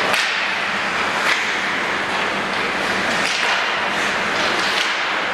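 Hockey skate blades scraping and carving on rink ice, with a few sharp clacks of sticks hitting the ice or puck.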